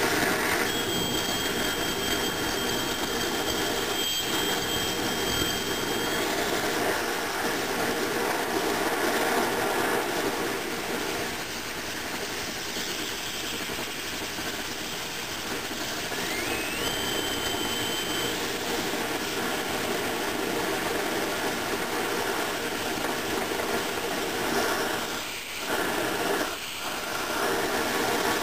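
Siphon-nozzle oil burner firing, a steady rush of burning oil spray and air. A thin high whistle sounds for the first few seconds and comes back briefly about halfway through, and the noise dips twice near the end.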